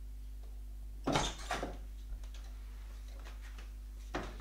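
An interior door being unlatched and opened: two loud short clacks a little after a second in, a faint click, then another clack just before the end, over a steady low hum.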